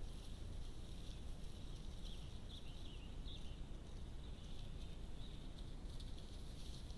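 Steady outdoor background noise picked up by a trail camera's microphone, a low rumble with hiss. Faint high chirps come through about two to three seconds in.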